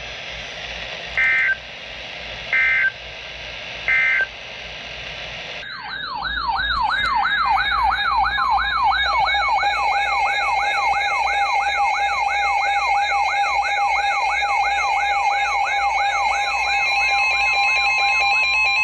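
Emergency Alert System tones: three short two-tone data bursts, the end-of-message signal closing the previous warning, then a loud warbling siren-like alert tone from a weather alert receiver, rising and falling about three times a second, announcing the next warning. Near the end a steady long tone, the weather radio's warning alarm tone, joins it.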